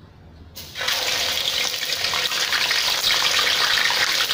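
Whole snakehead fish sizzling in hot oil in a wok, the sizzle starting suddenly less than a second in as the fish goes into the oil, then holding as a steady hiss.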